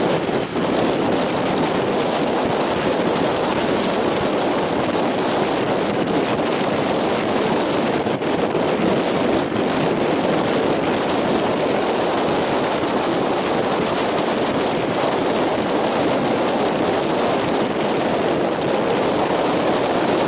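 Strong wind and heavy surf: a steady, unbroken rush of wind on the microphone mixed with the roar of breaking waves.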